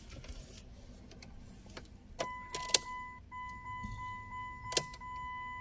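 Car ignition key and key ring clicking and jangling a few times as the key is turned to on, followed by a faint steady high electronic tone. No fuel-pump prime is heard, which points to a dead engine computer.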